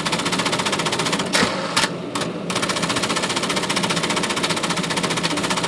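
Smith Corona all-power electric typewriter mechanism clattering in a rapid, even stream of repeated strokes. The stream breaks off briefly about one and a half seconds in, with a couple of separate knocks, then resumes.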